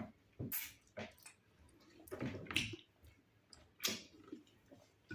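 A few short, wet mouth-and-nose noises from someone eating fufu and ogbono soup, spaced roughly a second apart, the loudest near the middle.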